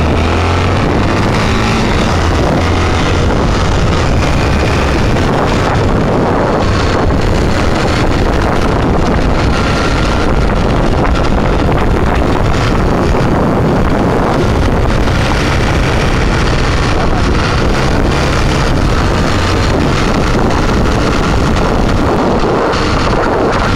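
Steady wind buffeting the microphone from a vehicle moving at speed, with an engine running underneath.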